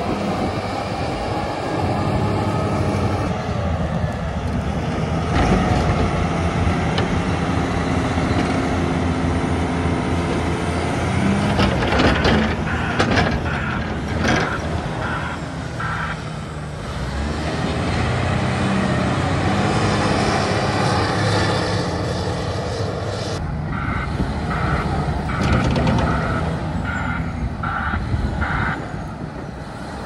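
Engine of a snow-removal vehicle running steadily, with its reversing alarm beeping about two times a second in two spells: one about halfway through and a longer one near the end.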